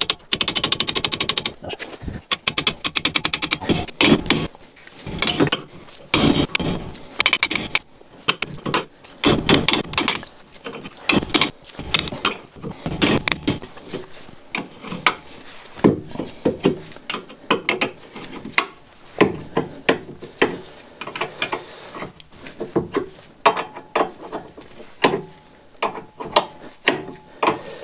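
Steel open-end wrench loosening a rusty nut on a suspension bushing bolt in short strokes: a rapid run of ticks at the start, then repeated irregular metal clicks and clinks as the wrench is turned and repositioned on the nut.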